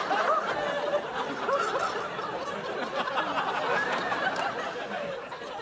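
Studio audience laughing, many voices at once, slowly dying away.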